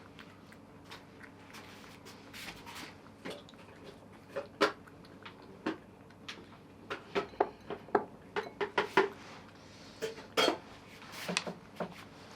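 Dishes and utensils clinking and clattering in a string of irregular sharp knocks, busiest in the second half.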